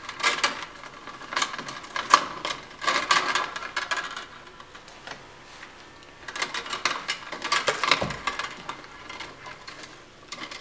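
Loose 14/4 Romex conductors, insulated wires and bare copper grounds, rustling and scraping against one another as they are pulled apart by hand, in two spells of rapid scratchy clicks.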